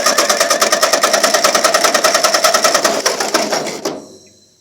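Ford 8N tractor's four-cylinder flathead engine cranked over by its starter, rapid and even at about eight to nine pulses a second, for a compression test on cylinder 4. The cranking stops about three and a half seconds in and winds down; that cylinder reads just under 125 psi against a 125 psi new spec, healthy compression.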